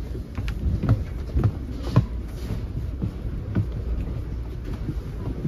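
Footsteps along the aisle of a multilevel rail coach: a few irregular thuds about half a second to a second apart, over the steady low rumble of the car.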